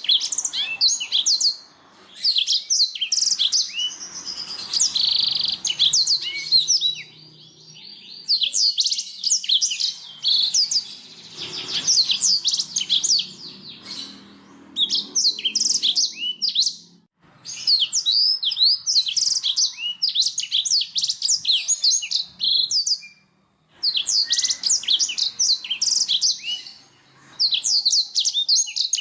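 Domestic canary singing: long bursts of rapid, varied trills and chirps, broken by brief pauses every few seconds.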